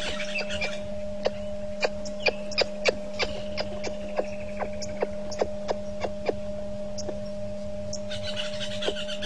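Steady electrical mains hum in the live camera's audio feed, with irregular sharp clicks over it, most of them between about two and three seconds in, and faint high chirping near the start and the end.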